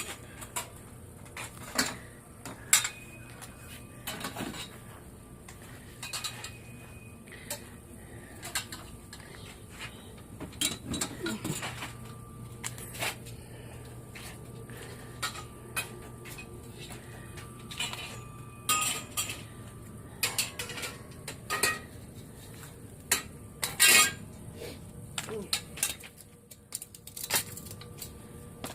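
Pieces of scrap metal clanking and clinking irregularly as they are handled and sorted, with the loudest clank about three quarters of the way through.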